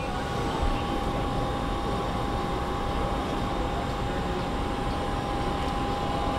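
Steady machine-shop din: machinery and ventilation running, an even noise with a steady high whine over it.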